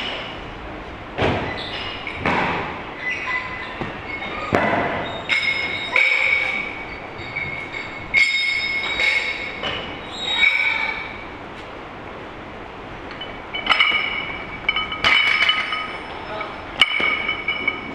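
Metal barbell plates and bars clinking and ringing in a weightlifting gym: scattered short strikes that leave a high ringing tone, with a cluster of clinks in the second half.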